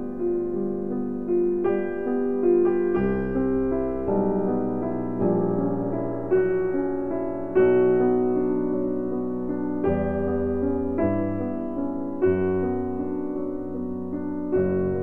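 Background piano music: single notes and chords struck about once or twice a second and left to ring and fade.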